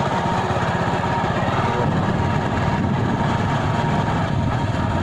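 Small motorcycle engine running at a steady speed while riding, its rapid even firing pulses under a haze of road and wind noise.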